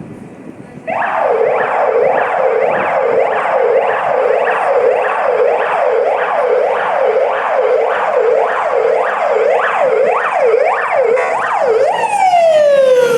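An alarm siren starts about a second in and sweeps quickly up and down, about twice a second. Near the end it changes to one tone that falls steadily in pitch, like a siren winding down.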